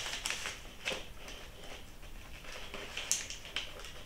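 Light rustling with a few small clicks and taps as hands tie hemp twine and a paper tag onto a package. One sharper, higher click comes about three seconds in.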